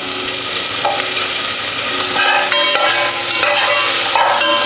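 Freshly added chopped onions frying in hot butter in a stainless steel saucepan, sizzling steadily as they are stirred with a metal slotted spoon.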